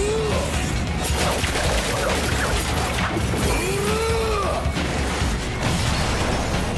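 Anime fight sound effects: a dense run of crashing, shattering impacts over background music.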